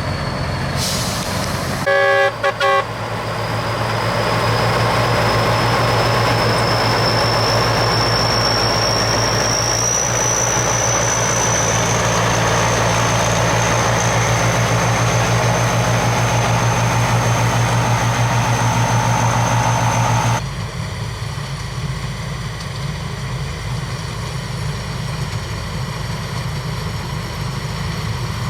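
Rice combine harvester's engine and machinery running steadily, with a high whine that slowly rises in pitch over several seconds. A few short horn beeps sound about two seconds in. About twenty seconds in the whine stops abruptly, leaving a lower engine rumble.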